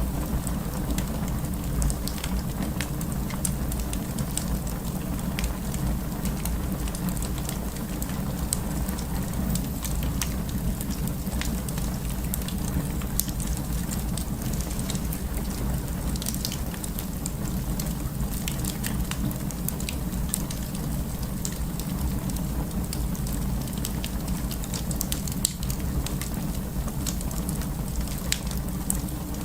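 Wood fire burning steadily, with a low rumble under frequent, irregular sharp crackles and pops.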